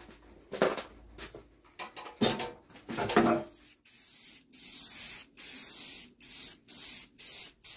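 Aerosol spray paint can spraying black paint in a run of short hissing bursts, each about half a second, starting a little before halfway through and getting shorter toward the end. Before that there are a few brief handling sounds.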